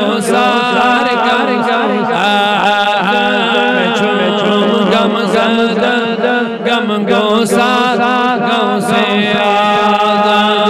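A man chanting a devotional manqabat in a melodic, ornamented style, his pitch wavering and gliding without pause over a steady low drone.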